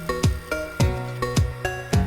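Background music with a steady beat, about two low drum beats a second under short melodic notes.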